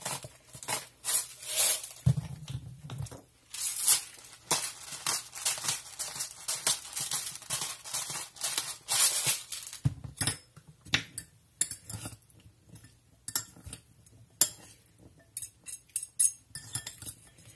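Hand-twisted spice grinders grinding seasoning over a salad bowl: a dense run of gritty crackles. About ten seconds in it gives way to a fork stirring the salad, with scattered clinks against the bowl.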